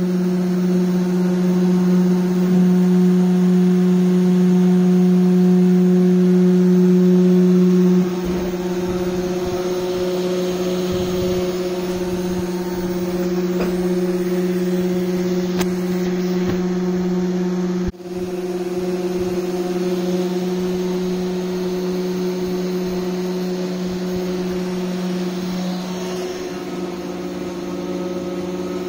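DIY CNC router's spindle motor running with a steady, loud hum. About eight seconds in the hum drops in level and a rougher noise comes in under it, and there is a brief drop-out near eighteen seconds.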